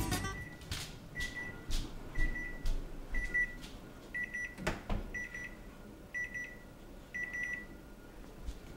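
Microwave timer beeping: a series of short, high electronic beeps about once a second, stopped near the end by a press on the keypad. This signals that the set baking time is up. A sharp knock comes about halfway through, with light footsteps and handling sounds between the beeps.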